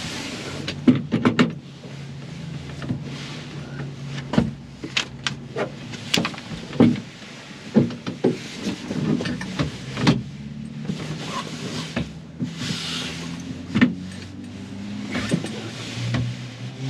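Tent pole being worked into place inside a canvas tent: a run of irregular knocks and clacks with bursts of canvas rustling, over a steady low hum.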